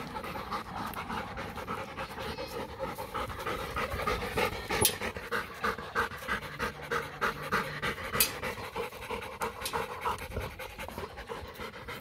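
A large shepherd-type dog panting quickly and steadily close by, breathing hard after play. Two sharp clicks cut through, about five and eight seconds in.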